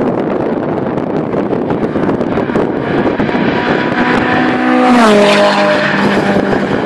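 A Honda Civic VTi and a 16-valve turbo Lancia driving past side by side at speed: their engine note grows louder as they approach and drops in pitch as they go by, about five seconds in. Wind buffets the microphone throughout.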